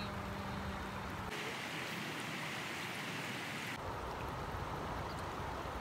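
Steady rushing hiss of river water flowing past, with the deep rumble under it dropping out for a couple of seconds in the middle.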